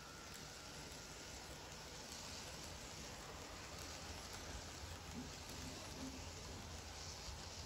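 Faint, steady hiss and low rumble of a Kato N-scale model train's cars rolling along the track.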